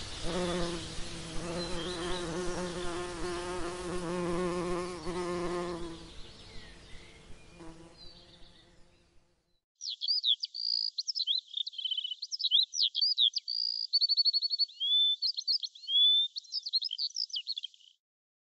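An insect buzzing steadily for about six seconds, then fading out. After a short gap, a small songbird chirps and trills in quick, varied high phrases until near the end.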